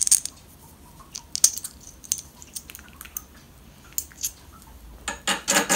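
Light, scattered metallic clicks and taps of a washer being slid off a bolt and small hardware handled in the hand, with a quicker run of louder clicks near the end.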